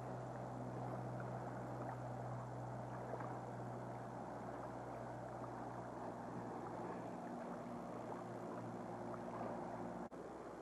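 Steady rushing of a wide river's current, over a low, steady hum. The sound briefly cuts out near the end.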